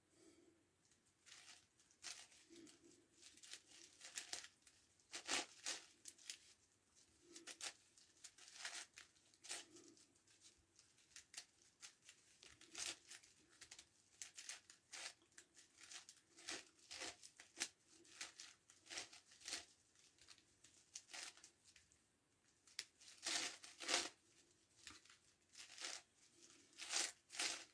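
9x9x9 Rubik's Cube being solved by hand: faint, irregular plastic clicks and scrapes as its layers are turned, coming in quick flurries with short pauses.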